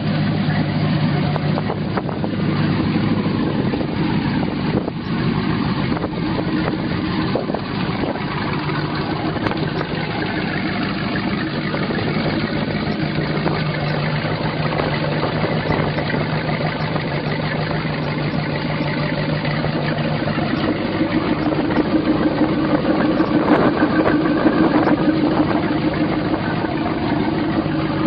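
The 350 inboard engine of a 2006 Boulton Kodiak jet boat idling steadily. It picks up and gets a little louder about three quarters of the way in.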